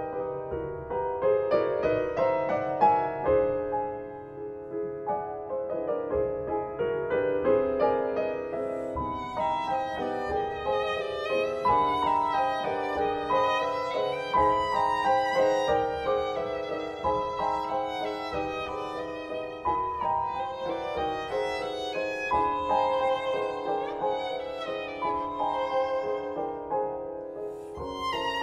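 Violin and Bösendorfer grand piano playing classical music together. Piano chords open the passage; from about nine seconds in, the violin carries a sustained melody with marked vibrato over the piano.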